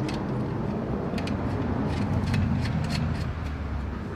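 A motor vehicle's engine rumbling close by, growing louder to a peak a little past halfway and then easing off. A few faint metal clicks come from a nut and bolt being handled on the antenna bracket.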